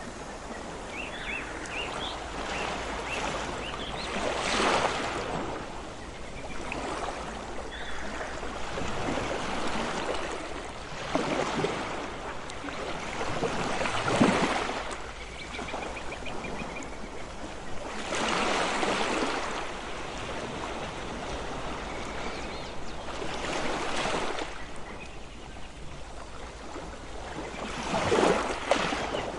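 Ocean surf washing ashore: a steady wash of water with a wave surging up every four to six seconds.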